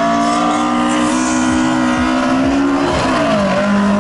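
Race car engine revving hard, its pitch creeping up, then falling about three seconds in and settling at a lower steady note.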